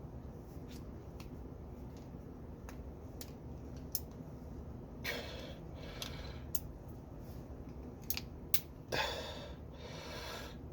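Light metal clicks and taps of small hand tools working a snap ring back into a torque wrench's ratchet head, with two longer rasping sounds, about five and nine seconds in.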